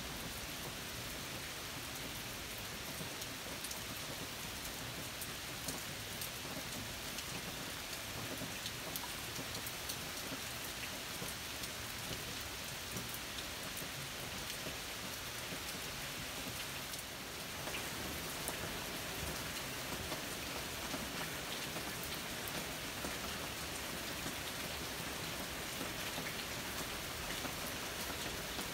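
Steady rain falling, with many separate drops ticking sharply close by. The rain gets a little louder about two-thirds of the way through.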